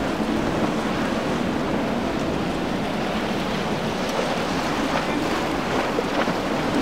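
Steady rush of waves and surf, with wind buffeting the microphone.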